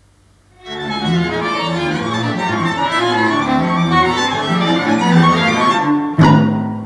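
Recorded music for bowed strings played back over the hall's speakers. After a near-silent start, the strings come in about a second in with quick, busy lines across high and low registers. A sharp accented attack near the end gives way to low held cello and bass notes.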